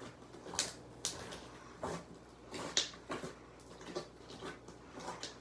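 Hands kneading a large batch of homemade slime in a bucket: a string of short, irregular squelching pops and crackles.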